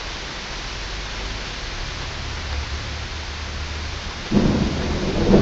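Heavy tropical downpour hissing steadily; about four seconds in, a loud clap of thunder breaks in suddenly and keeps rumbling.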